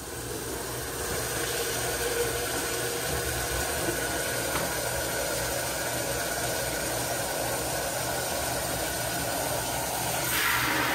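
Water running into a plastic pitcher at a kitchen sink while sugar syrup is being mixed. It is a steady rush that gets louder about ten seconds in as the faucet stream fills the pitcher.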